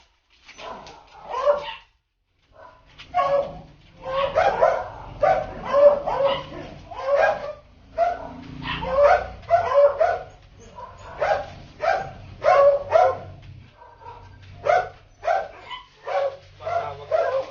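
A dog barking over and over, about two barks a second, with brief pauses about two seconds in and again near fourteen seconds.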